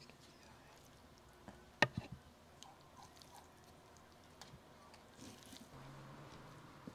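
Quiet hand food-prep sounds: scattered small clicks and taps of a paring knife and garlic cloves, and of cooked beef tongue being handled and cut on a wooden board, with one sharp double knock about two seconds in. A faint low hum comes in near the end.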